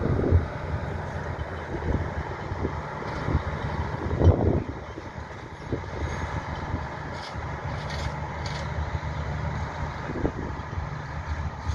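Departing passenger train rolling away along the track: a steady low engine rumble with scattered knocks and clanks from the coaches, the loudest knock about four seconds in.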